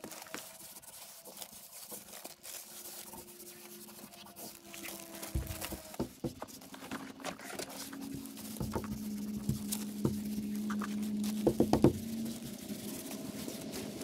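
Hands rubbing and pressing peel-and-stick membrane onto plywood sheathing while its release-paper backing rustles and crackles as it is peeled away, with a few sharp rustles about halfway through and again near the end. A steady low hum runs underneath.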